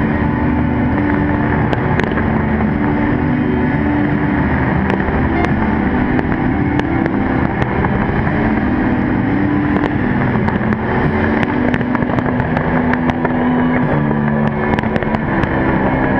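Continuous fireworks barrage: a dense, steady roar of bursts with many sharp cracks, loud enough to overload the microphone. Under it are low held notes that change pitch in steps, like show music.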